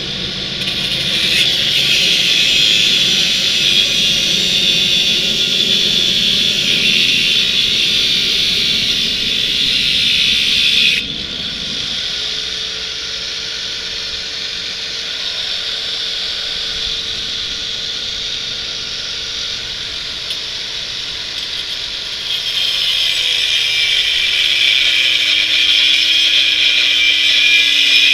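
Electric power tool cutting through a steel bicycle frame tube. A loud, steady cutting hiss for about eleven seconds, then the tool runs lighter with a steady hum for about ten seconds. Near the end it bites into the metal again and its pitch sags under the load.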